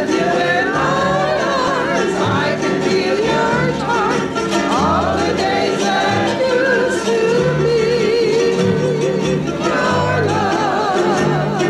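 Hawaiian music played live for hula: a voice singing long notes with a wide vibrato over an accompaniment with steady bass notes.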